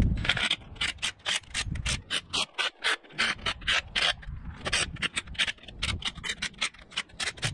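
Ratchet wrench worked back and forth in quick strokes, a short burst of clicks on each back-swing at about four a second, with a brief pause near the middle. The bolts of a tractor transmission case cover are being snugged down over fresh silicone sealant.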